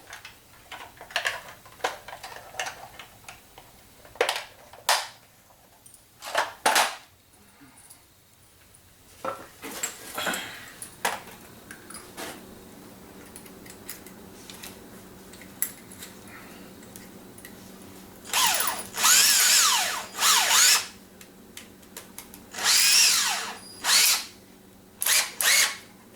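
Power drill boring pilot holes in wood with a 3/16-inch bit, running in several short bursts that speed up and slow down in the second half. Before them come scattered knocks and clatter of handling the work.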